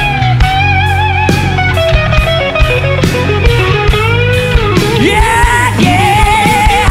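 Live rock band: an electric guitar plays a lead solo line with wide vibrato and several bends and swoops in pitch, over a steady drum beat and bass.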